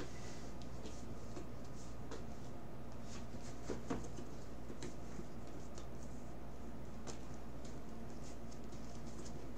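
Leather belt and a leather ammunition pouch being handled and threaded together, a scatter of faint clicks and rustles from the leather and its metal fittings, over a steady low hum.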